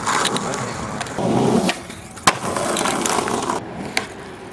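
Skateboard wheels rolling over rough asphalt, with sharp wooden clacks of the board hitting the ground in ollies: a loud one a little over two seconds in and a lighter one near the end.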